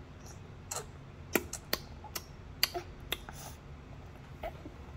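A toddler sucking and chewing on his fingers: about ten sharp, irregular wet mouth clicks and smacks, most of them in the first three seconds and one more near the end.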